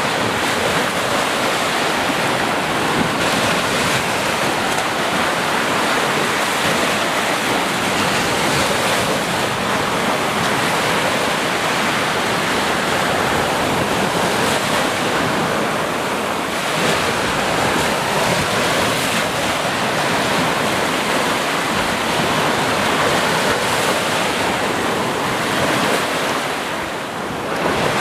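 Ocean surf: waves breaking and washing continuously in a steady, full rush of water, easing briefly near the end before swelling again.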